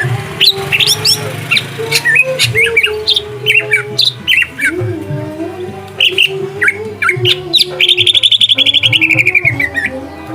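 Greater green leafbird (cucak hijau) singing: a string of quick chirps and short whistled slides, then, about eight seconds in, a fast rattling trill lasting about two seconds that slides slightly down in pitch.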